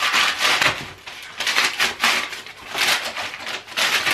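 Brown kraft wrapping paper being torn and crumpled off a gift by hand, in four or five quick rustling bursts.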